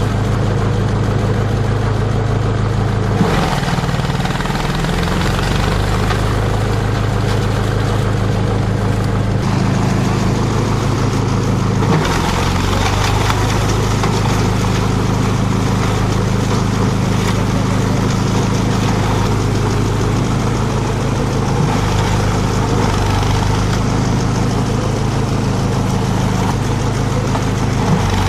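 Engine-driven chopper-shredder machine running steadily with a low hum. Its pitch sags briefly about three seconds in and again around twelve seconds, then recovers.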